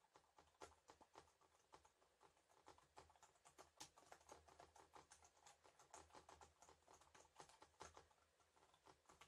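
Jelly Comb full-size wireless keyboard with round keycaps being typed on: a fast, uneven run of faint, soft key clicks, on the quiet side for a keyboard.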